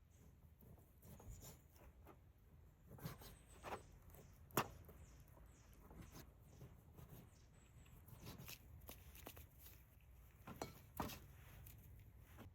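Faint, sparse clicks and knocks of objects being handled, the loudest a sharp tap about four and a half seconds in, with a few more near the end, over a low quiet background.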